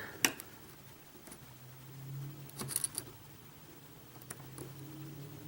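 Lock picks working in a Mul-T-Lock Interactive cylinder that is sitting in a false set: a few small sharp clicks, one right at the start and a quick cluster about two and a half to three seconds in, over a faint low hum.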